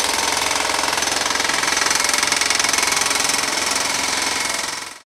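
Jackhammer chipping concrete off a bridge structure, hammering rapidly and steadily, then cutting off suddenly near the end.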